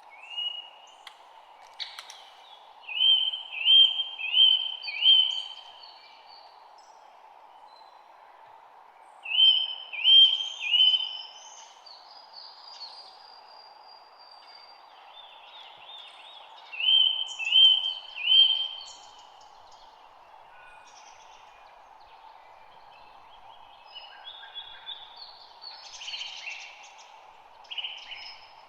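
A songbird singing a loud phrase of three or four repeated, slurred whistled notes, about every seven seconds, with softer chirps from other birds in between and a busier chatter near the end. A steady background noise runs underneath.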